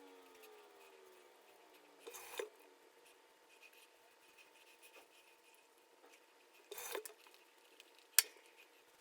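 Straight razor shaving stubble: two short scrapes about five seconds apart, then a sharp click near the end.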